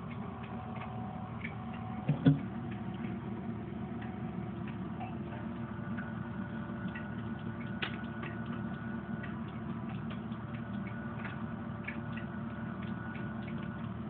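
Baby red-footed tortoise eating leafy greens: small irregular clicks from its beak biting and tearing the leaves, over a steady low hum. A short thump about two seconds in.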